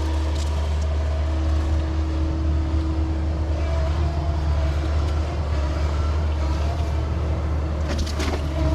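Diesel engine of a roughly 34,000-pound excavator running steadily, a low drone with a held whine above it. There is a short rattle near the end.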